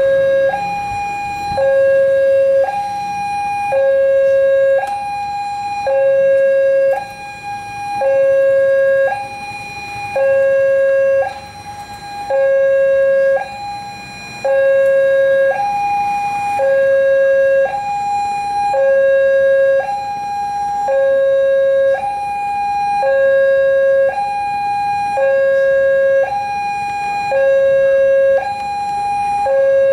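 Railway level-crossing warning siren sounding a two-tone alternating signal, a lower and a higher tone each held about a second and repeating evenly. It means the crossing is closed, barriers down, for an approaching train.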